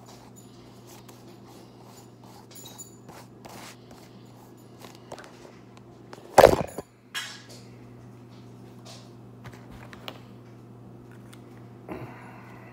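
Handling noise from a spiral notepad and a phone: scattered small clicks and rustles, then a loud sharp knock about six and a half seconds in and another near the end. A steady low hum runs underneath.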